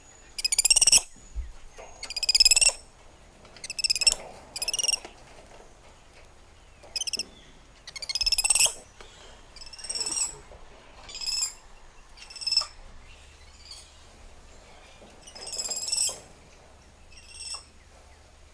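Spider monkeys calling: about a dozen short, high-pitched chirps one to three seconds apart, each wavering rapidly, some loud and some faint.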